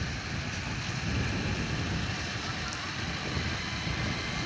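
Wind rushing over the microphone of a moving motorcycle, with a steady low road and engine rumble beneath.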